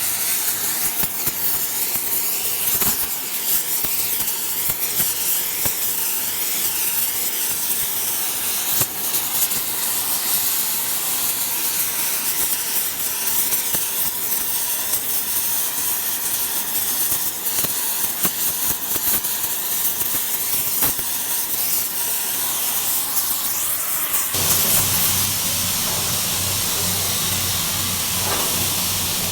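Arc welding on hardened steel: a continuous crackling sizzle of the welding arc. About 24 seconds in, it gives way to a steady hiss with a low hum.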